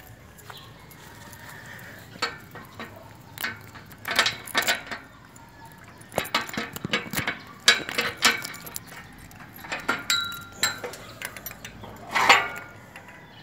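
Metal clinks and clanks of a padlock, chain and keys being handled on a steel bar gate: an irregular run of sharp clinks with some brief metallic ringing, the loudest clank near the end.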